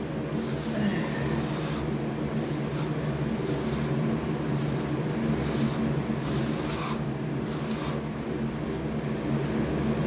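Trowel scraping and smoothing wet deck mud, in repeated strokes of about two a second, over a steady low hum.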